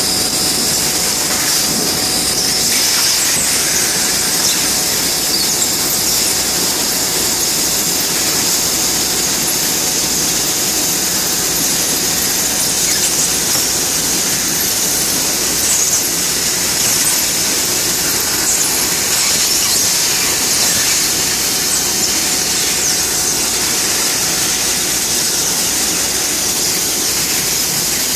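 Bystronic CNC laser cutting machine running, a loud, steady high-pitched hiss that holds without a break.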